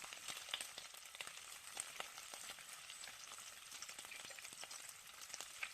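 Bacon sizzling: a steady high hiss dotted with many small crackles and pops.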